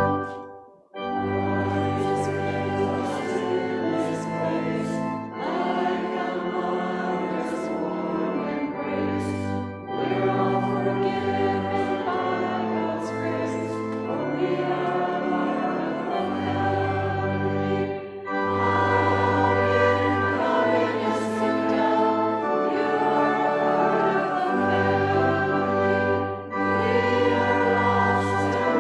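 Church congregation singing a hymn in unison with instrumental accompaniment, held notes moving step by step; a brief break about a second in, then the verse runs on.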